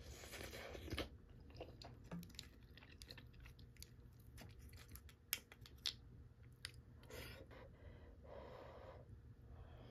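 Faint eating sounds: soft chewing, with sharp clicks of a wooden spoon against a stainless steel bowl of clam and dough soup.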